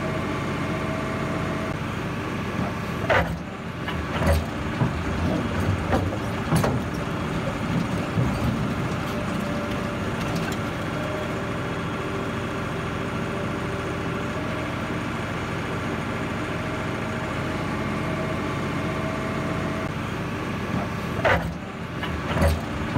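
Heavy machine engine running steadily, with a run of knocks and clunks a few seconds in and again near the end.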